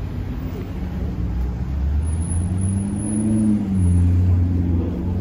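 A car engine running low and loud as it passes on the street. It grows louder about two seconds in, and its pitch rises and then falls as it accelerates.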